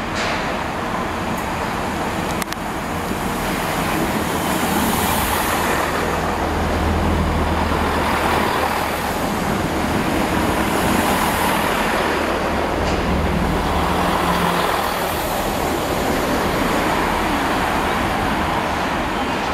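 A Network Turbo diesel multiple unit rolling into the platform: a steady diesel engine drone with wheel-on-rail rumble, loudest about a third of the way in as the cab passes close by, then easing a little as the train runs on.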